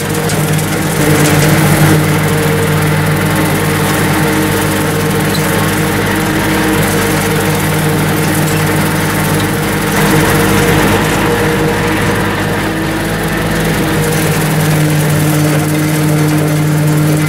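Bobcat CT230 compact tractor's diesel engine running steadily under load, driving a 60-inch King Kutter rotary mower through the PTO as it cuts grass.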